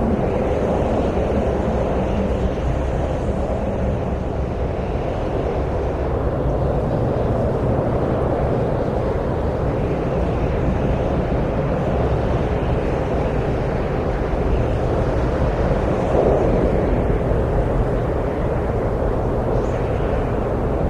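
Wind blowing steadily, a low rushing sound that swells and eases slowly every few seconds.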